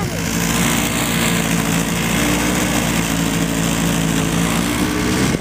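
A small engine running steadily at an even pitch, under a steady rush of wind noise.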